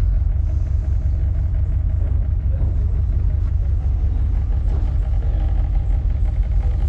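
A steady low rumble with no distinct events standing out.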